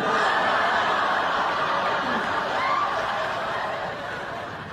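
Studio audience laughing: one long wave of laughter that starts suddenly and slowly fades.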